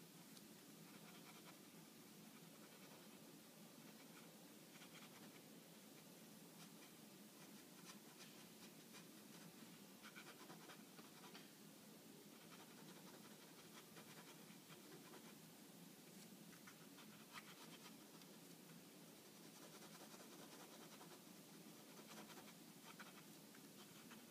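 Faint scratching of a pen on paper in short, irregular drawing strokes, over a steady low hiss.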